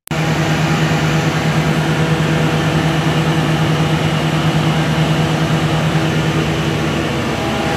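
A 500 kVA diesel generator set running steadily, a loud even engine sound at a constant pitch.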